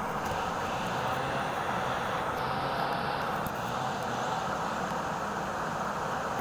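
Shallow river water rushing over rocks, a steady even rush.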